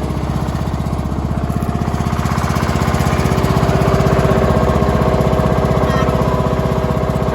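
Troy-Bilt Bronco riding mower's 18.5 hp overhead-valve engine running steadily with a rapid, even putter.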